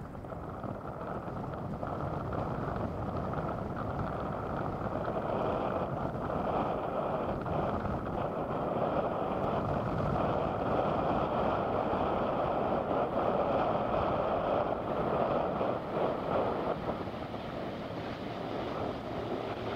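Jet engines of a Boeing 777 freighter (GE90 turbofans) during its landing roll on the runway: a steady rushing rumble that grows louder over the first several seconds, with a faint whine above it.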